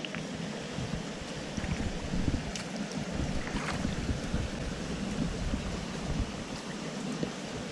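Small creek water flowing steadily, with wind buffeting the microphone in uneven low rumbles.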